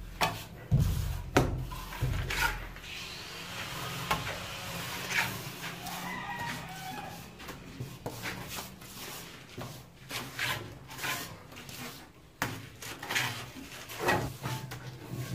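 Steel trowel slapping cement mortar onto a concrete hollow-block wall and scraping it smooth around a PVC conduit: irregular sharp slaps and knocks with scraping in between.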